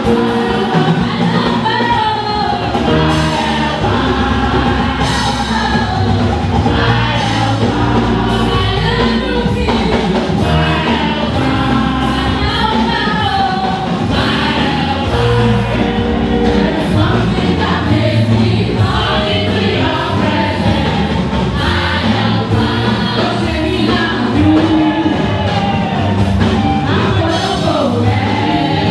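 Choir singing a gospel song with instrumental accompaniment and a steady bass line.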